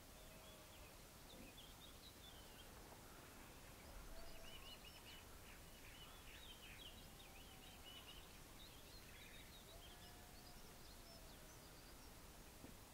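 Near silence with faint birdsong: small birds chirping and twittering in short runs, with a few faint lower calls.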